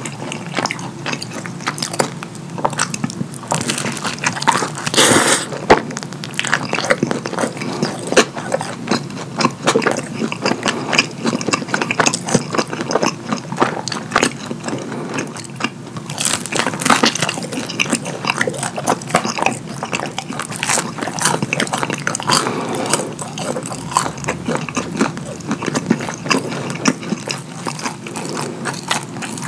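Close-miked wet chewing and lip-smacking of cheese-sauce-soaked pizza, with a steady run of rapid sticky clicks, plus squelching as the sauce-covered food is squeezed in gloved hands.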